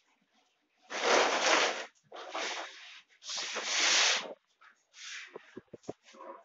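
Hand scrubbing or scraping on a kitchen countertop: three long, loud rubbing strokes, then several shorter, softer ones with a few sharp clicks near the end.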